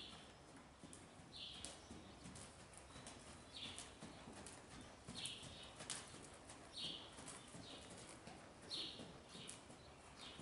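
Faint, muffled hoofbeats of a horse trotting on soft sand arena footing. A short high chirp repeats about every one and a half seconds.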